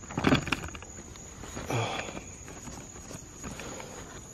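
Night insects, crickets by the sound, singing a steady high continuous trill, with two short rustles of steps through grass, one just after the start and one a little before two seconds in.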